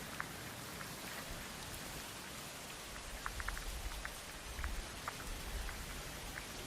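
Heavy rain falling: a steady hiss with scattered sharp drop ticks, and a low rumble in the middle.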